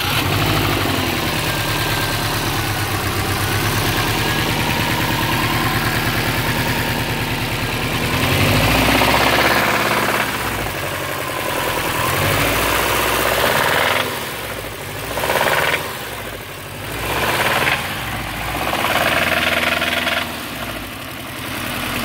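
2005 Subaru Impreza WRX STI's turbocharged flat-four idling, with a knock that is loudest on the passenger side. The owner is unsure whether it is rod knock or a leak at the intake manifold gasket, alongside a fault code for the intake manifold position sensor circuit reading low. The sound grows louder and softer in the second half as the microphone moves around the engine bay.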